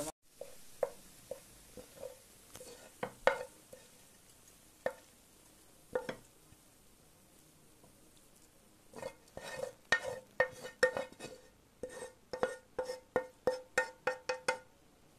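Wooden spoon knocking and scraping against a frying pan as cooked vegetables are pushed out onto a plate. Scattered knocks at first, then from about nine seconds in a quick run of taps, about three a second, each with a short ring.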